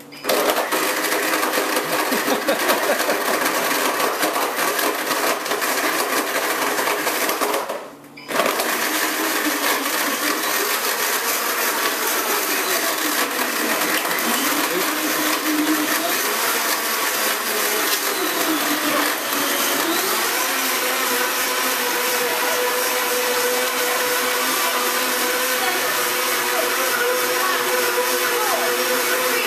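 Countertop blender running at high speed, crushing ice cubes into a chocolate shake. It cuts out for about half a second near eight seconds in, then starts again and runs steadily.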